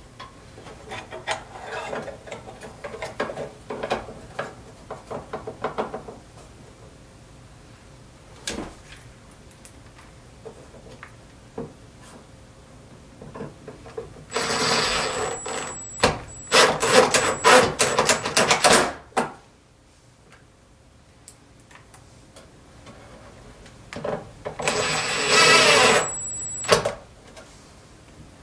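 Hands handling the opened TV chassis and its wiring: small clicks and rustles of connectors and parts, then two loud bursts of harsh rasping noise, a longer one around the middle and a shorter one near the end.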